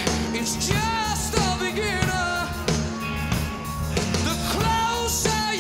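Rock music with a singer over a full band, playing steadily.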